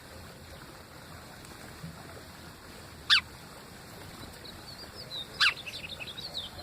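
Wild birds calling: two sharp, loud calls a couple of seconds apart, each a quick note sweeping steeply down in pitch, and after the second a run of rapid high chirps.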